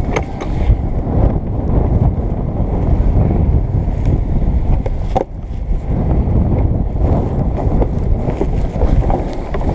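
Wind buffeting the microphone aboard a sailing yacht under way, a loud steady low rumble, with a couple of sharp knocks, one about halfway through, as lines are handled at the winch.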